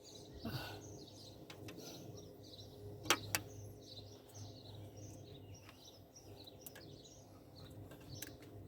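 Small battery-powered ceiling fan running with a steady low hum while birds chirp repeatedly outside. Two sharp clicks come close together about three seconds in.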